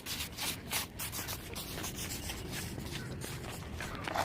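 Irregular rustling and scraping noise, in quick uneven strokes, with no clear tone.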